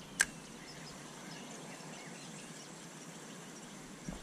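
Quiet riverside outdoor ambience with faint bird chirps. A single sharp click comes just after the start.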